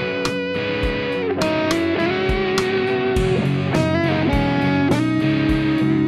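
Background music: a song led by guitar, playing held melody notes over a steady beat.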